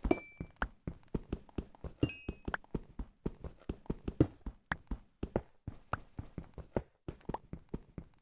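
A quick, irregular series of knocks and taps, a few of them with a brief, bright metallic ring.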